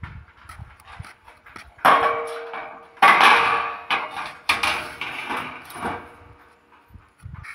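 Galvanized steel mounting-frame channels clanging against each other as a long rail is laid onto the solar-panel frame: two loud metallic clangs about two and three seconds in, the first ringing on, then several lighter knocks.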